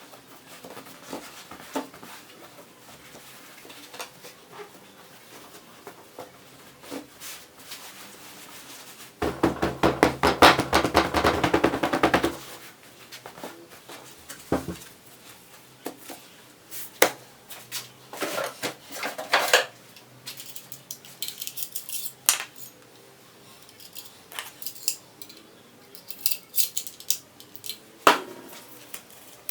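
Scattered clicks, knocks and clatter of hand work with tools and small hard parts, with a dense rattling stretch of about three seconds near the middle.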